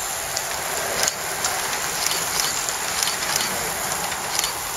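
Steady whir of a pack of road racing bicycles sweeping past, tyres running on tarmac, with a few short faint ticks over it.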